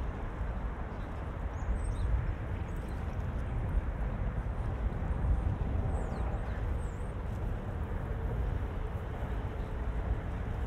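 Steady outdoor city ambience, mostly a low rumble of traffic, with a few faint high chirps in the first half.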